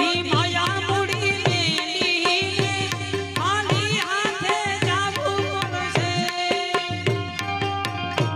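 Instrumental break in a Gujarati song: tabla playing a fast, steady rhythm, its bass drum bending up and down in pitch, under a wavering melody instrument.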